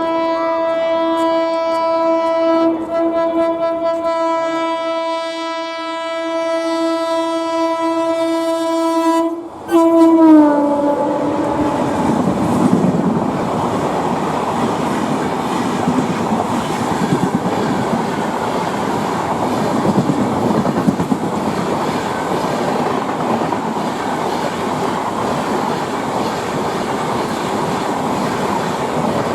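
Diesel locomotive air horn sounding one long steady blast for about nine seconds, then after a brief break a second blast whose pitch drops as the locomotive passes. The train then runs past with a steady rumble and clatter of wheels on rail.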